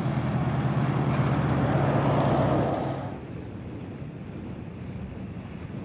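ICON A5 light amphibious aircraft's propeller engine running with a steady drone. About three seconds in it drops to a quieter, duller drone.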